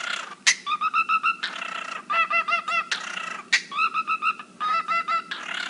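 Pet cockatiel mimicking dubstep: runs of short arched chirps repeated quickly, about six a second, broken by a few brief harsh noisy bursts.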